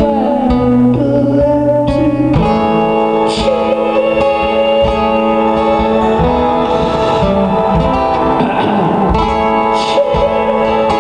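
Live music: guitar playing with a voice singing over it.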